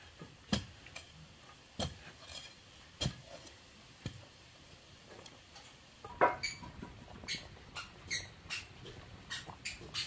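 A digging rod jabbing and scraping in dry soil, giving a few scattered knocks. About six seconds in, a wood fire under a cooking pot takes over, crackling with sharp pops over a low rush, the loudest pop coming first.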